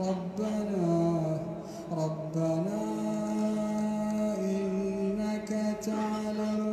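A man's voice reciting the Quran in a slow, melodic chant, holding long notes that dip and rise between steady pitches.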